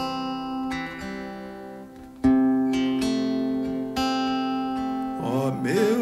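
Acoustic guitar played slowly, three chords strummed and left to ring and fade, the loudest a little after two seconds in. A man's singing voice comes in near the end.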